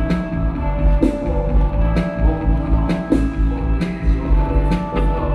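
Live indie-pop band playing an instrumental passage: electric guitar and keyboard holding sustained notes over a drum kit keeping a steady beat, with no singing.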